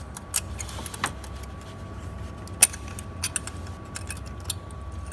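Scattered light metallic clicks and clinks of small parts being handled and fitted by hand, the sharpest about two and a half seconds in.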